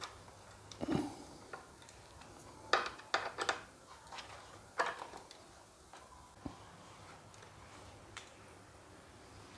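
Scattered faint clicks and light metal taps of an Allen key and bolt being worked as a small headlight-guard bracket is bolted up under a motorcycle headlight, with a cluster of clicks a few seconds in.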